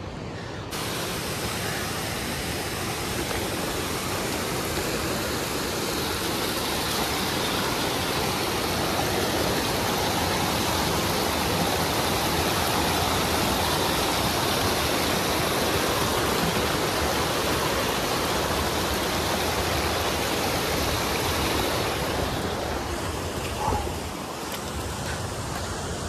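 Rushing mountain water, a steady full roar of a torrent or waterfall that starts abruptly about a second in and eases off near the end.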